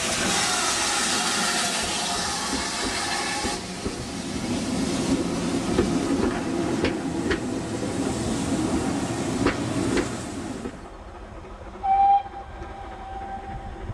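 GWR 5600-class 0-6-2T tank engine 5619 moving off with a loud hiss of steam, then its coaches rolling past with sharp clicks over the rail joints. After a sudden drop in sound, a distant steam whistle blows about 12 seconds in: a short note, then a longer, fainter one.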